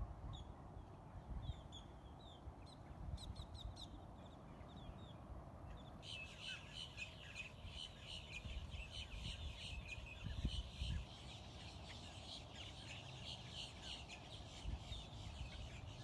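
A flock of birds calling: scattered calls at first, then, about six seconds in, many birds calling at once in a dense, continuous chorus. Wind rumbles on the microphone, gusting about ten seconds in.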